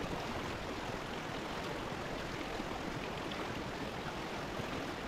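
Shallow stream of water running across a dirt trail: a steady rush of flowing water.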